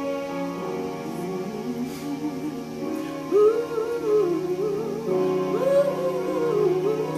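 Slow gospel worship music: a woman sings a drawn-out, wavering melodic run with vibrato, without clear words, over sustained keyboard chords.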